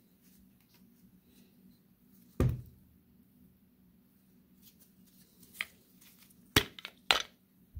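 Metal parts of a disassembled Haldex air brake relay valve handled on a metal workbench: one knock about two and a half seconds in, then a few sharp clicks and taps near the end, over a faint steady hum.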